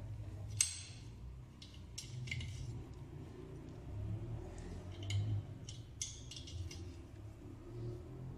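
A small socket ratchet clicking in short, irregular bursts, with metal clinks, as nuts are run down on the cylinder head of a Peugeot 103 moped engine. A low rumble runs underneath.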